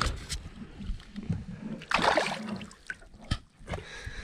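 Lake water sloshing and splashing around an action camera held in the water on a pole, with a louder splash about two seconds in.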